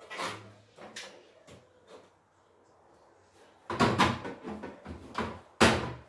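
Series of hard knocks and clatters, like refrigerator drawers and shelves being handled and set down, with a loud cluster about four seconds in and another sharp knock near the end.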